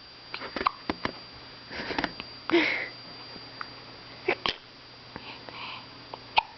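A person hiccuping: several short, sudden hiccups at irregular intervals, the loudest about two and a half seconds in.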